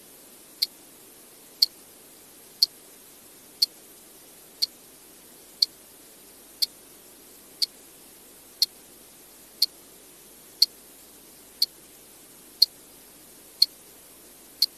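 A clock ticking, one sharp tick about every second, over a faint steady hiss.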